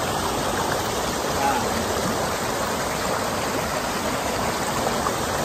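Creek water rushing steadily over rocks in a small cascade: a continuous, even white-water rush.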